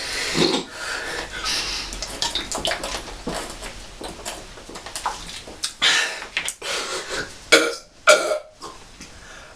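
A man forcing out burps after drinking cola in a burping contest: a string of separate burps, the two loudest short and close together near the end.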